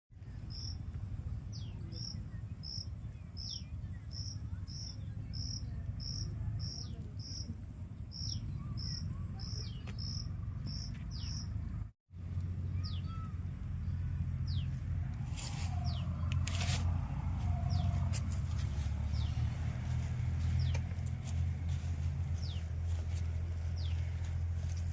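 Insects chirping in an even rhythm, about three chirps a second, over a steady high-pitched insect drone and a low rumble. The sound cuts out abruptly about halfway through, and the chirping is replaced by scattered faint ticks over the same drone.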